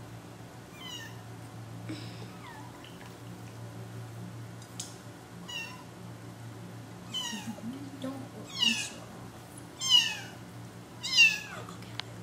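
Very young kitten mewing repeatedly while held in bath water: short, high cries that fall in pitch, a few scattered early on, then louder and coming every second or so in the second half.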